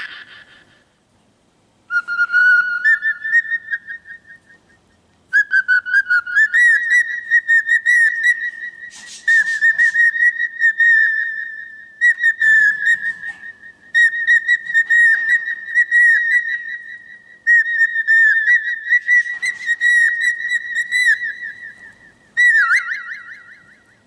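Cockatiel whistling a long warbling song of repeated phrases full of quick trills. One short phrase comes first, then a long run of phrases with brief pauses, ending in a short burst.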